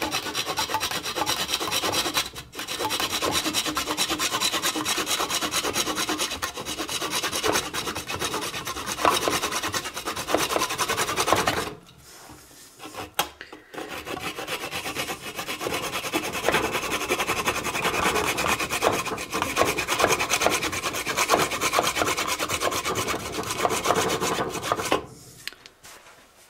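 Hand saw cutting into a wooden bowl blank, with quick rasping strokes in two long spells split by a short pause about halfway through; the sawing stops near the end.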